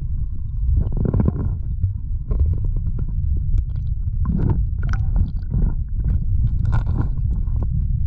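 Continuous low rumble with irregular crackles and short noisy bursts, like wind buffeting a microphone on a boat ride.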